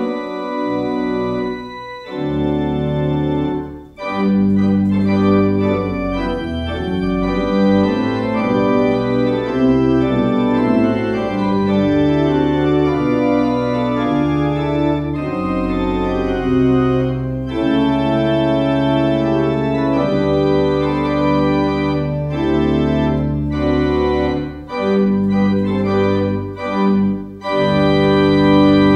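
Organ playing slow music of held chords that change every second or two, with a brief break about four seconds in.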